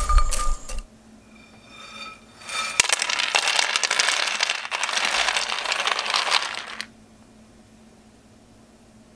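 Toasted bread cubes rattling as they are tossed in a dry frying pan, stopping within the first second. About two and a half seconds in, a dense rattling pour of about four seconds as the crisp cubes slide out of the pan onto a paper plate, then it stops suddenly.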